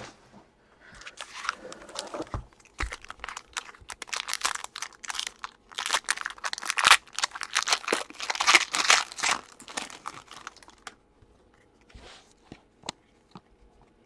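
Foil wrapper of a Prizm basketball card pack being torn open and crinkled by hand, a dense crackling that runs for about ten seconds. Near the end it gives way to a few light clicks as the cards come out of the wrapper and are handled.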